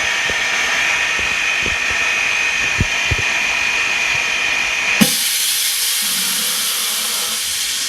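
OCA lamination and bubble-removal machine running through its bubble-removal stage, a steady mechanical whir with a high whine and a few faint knocks. About five seconds in a click switches it to a hiss of air.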